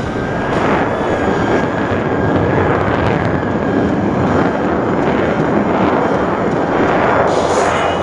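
Aircraft engine noise, a loud steady rushing with a faint steady whine in the first few seconds.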